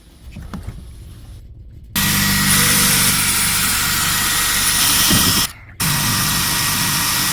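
Electric drill boring a 5/32-inch pilot hole for a door latch screw: it starts about two seconds in, stops for a moment, and runs again near the end.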